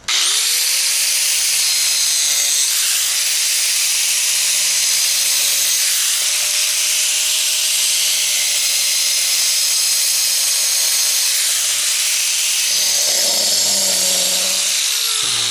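Angle grinder spinning up, then cutting grooves into a thin piece of natural stone veneer: a steady loud whine over a hiss of grinding. Near the end the cut eases off and the motor winds down.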